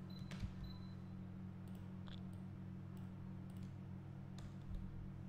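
A few faint computer mouse clicks, spread irregularly, over a steady low hum.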